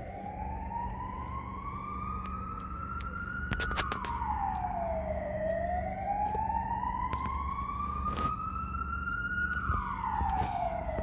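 Emergency vehicle siren wailing: the pitch climbs slowly for several seconds, then drops quickly, twice, over a low steady rumble. A few sharp clicks come about three and a half seconds in.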